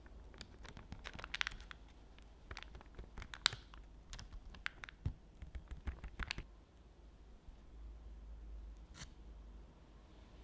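Silicone spatula spreading and smoothing thick coffee cream mixture in a parchment-lined loaf pan: a run of short scrapes and crinkles of the paper lining through the first six or so seconds, then one more near the end.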